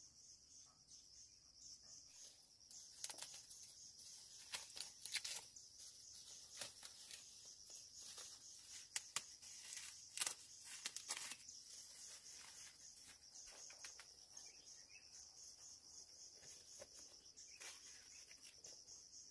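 Faint, steady high chirring of insects, with scattered soft clicks and rustles between about three and twelve seconds in.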